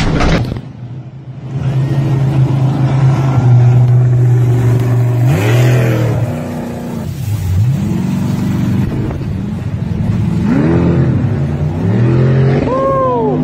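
A short loud noisy burst at the very start, then a boat engine running at a steady pitch. From about five seconds in it revs up and down repeatedly as the boat races through whitewater rapids.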